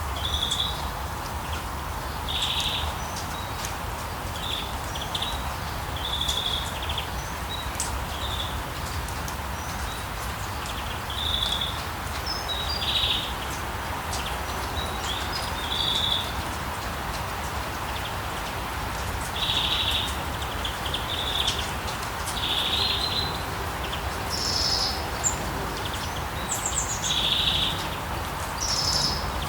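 Steady rain hiss with birds calling and chirping in short repeated phrases throughout, and a few higher, quicker calls near the end.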